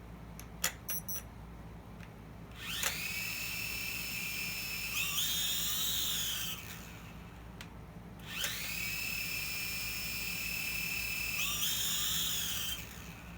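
Syma X5SW quadcopter's small electric motors spinning up twice with a high whine. Each time the pitch rises quickly, holds steady, steps higher after a couple of seconds, then stops. One propeller blade is failing to spin. A few sharp clicks come before the first run.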